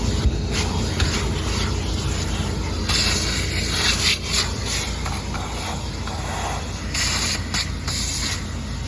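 A car on the move: steady low engine and road rumble with rushing wind noise that surges about three seconds in and again near seven seconds.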